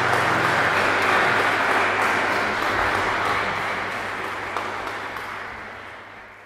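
Audience applauding at the end of a song, the clapping steady at first and then thinning and fading away over the last two seconds or so.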